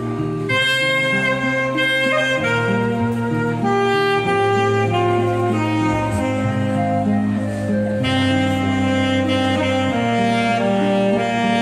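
Saxophone playing a slow ballad melody in long held notes, over an accompaniment of low sustained notes.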